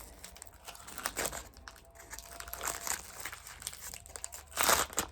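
Crinkling of a disposable 3 ml syringe's wrapper as it is handled and opened, in irregular rustles with a louder burst near the end.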